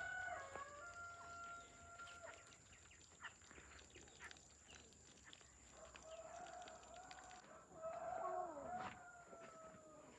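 Rooster crowing faintly, twice: one crow at the start and a longer one from about six seconds in.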